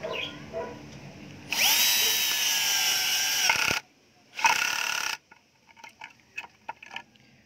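Bosch GSB 120-LI 12 V cordless drill/driver driving a screw into wood at clutch setting 15. Its motor whines for about two seconds and stops, then runs again in a shorter burst under a second long as the screw seats flush. A few faint clicks follow.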